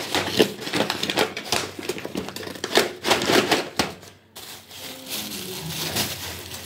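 Brown paper bag crinkling and rustling as it is handled, a quick run of sharp crackles. About four seconds in this gives way to a softer rustle of plastic wrap as a pack of tomatoes is picked up.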